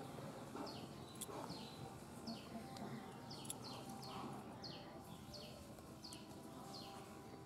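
A bird calling over and over, faintly, with short high notes that each fall in pitch, about two a second, and a couple of faint clicks.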